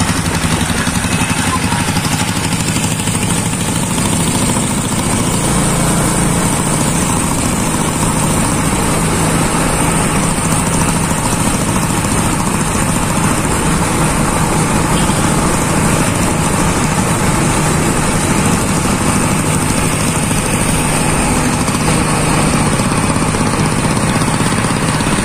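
The diesel engine of a homemade motorcycle running steadily on the move, mixed with road and wind noise.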